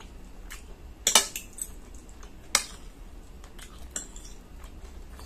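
Metal fork and spoon clinking and scraping on a white ceramic plate while twirling spaghetti: a few sharp clinks, the loudest about a second in and another at about two and a half seconds.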